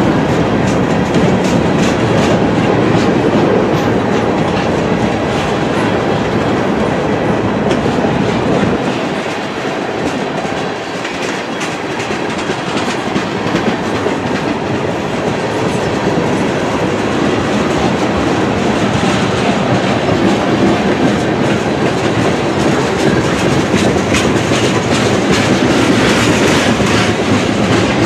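Freight train cars rolling past at close range: a steady rumble of wheels on rail with a continuous clickety-clack, as flatcars give way to tank cars. It eases a little around ten seconds in, then picks up again.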